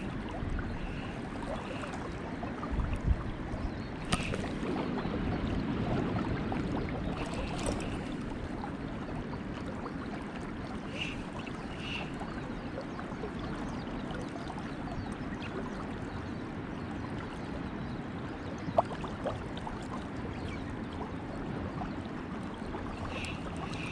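Steady rushing of river water, with a few sharp clicks and faint short high chirps now and then.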